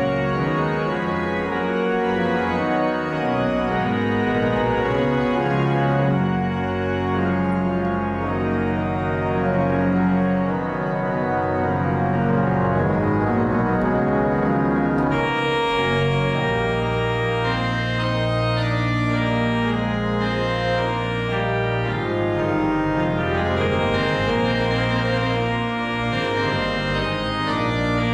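Organ playing a postlude in sustained full chords over a moving bass line. About halfway through the sound turns brighter over a held low note.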